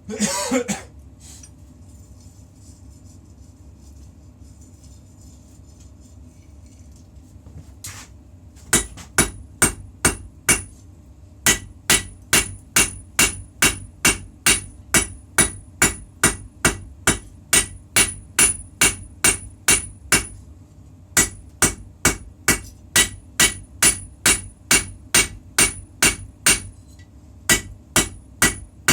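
Forging hammer striking the puukko blade steel on an anvil: runs of ringing blows, about two to three a second, starting some nine seconds in, with brief pauses between runs. A short clatter at the very start, and a steady low hum underneath.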